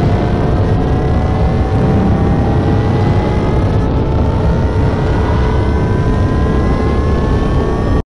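Homemade spaceship take-off sound effect: a loud, steady rocket-launch rumble built from a modified Soyuz blastoff recording, with a thin whine rising slowly in pitch over it.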